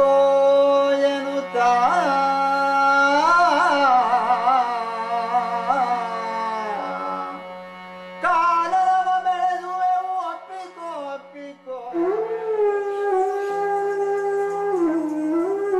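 Indian classical music: a sliding, ornamented melody over a steady drone, with a short pause about seven seconds in before the melody returns.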